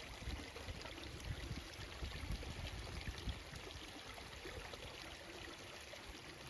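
Steady running water of a small stream, an even trickling rush.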